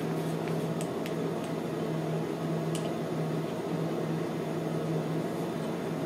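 A steady low mechanical hum, with a few faint light clicks of a wooden stir stick against a small stainless steel bowl in the first three seconds.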